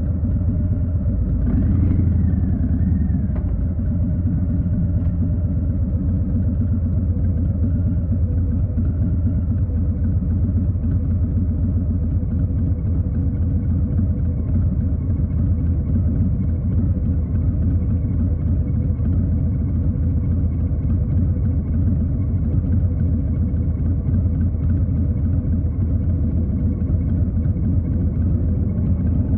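2020 Harley-Davidson Street Bob's Milwaukee-Eight 107 V-twin engine running with a steady low rumble. A faint tone rises and falls about two seconds in.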